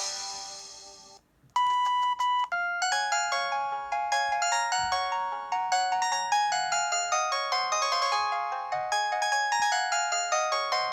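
Preloaded ringtones on a ZTE S2X mobile phone. One tune fades out over the first second. After a brief gap a new ringtone starts with a few steady beeps, then runs into a fast melody of many short notes.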